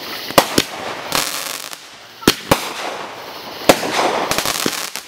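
Fireworks going off: sharp bangs, mostly in close pairs, about every second and a half, then a quick run of crackling near the end.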